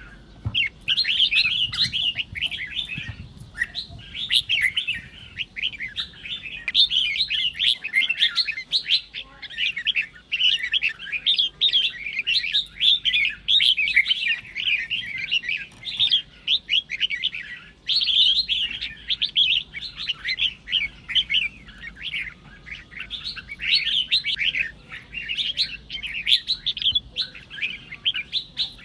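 Red-whiskered bulbul chattering and calling in dense, rapid runs of chirped notes, in bursts with short breaks: the excited provoking calls that keepers play to set a rival bulbul chattering.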